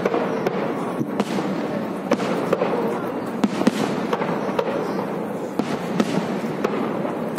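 Aerial firework shells bursting in quick succession: many sharp bangs and pops over a continuous dense crackling.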